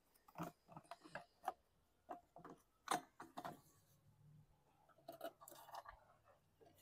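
Faint, scattered clicks and taps of a recoil starter and small metal parts being handled, the loudest about three seconds in.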